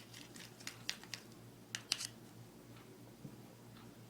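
Bamboo stick stirring shampoo slime in a bowl, clicking against the bowl in a quick irregular run of light ticks during the first two seconds, then going faint.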